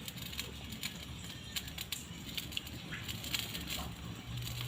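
Pandan leaves being handled and put into a wok of water, with scattered light clicks and crinkling.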